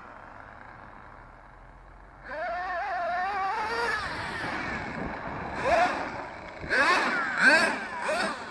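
Twin .28 nitro engines of an RC monster truck, faint at first, then from about two seconds in running at high revs with the pitch wavering as the throttle is worked. Near the end come several quick throttle bursts, each rising sharply in pitch.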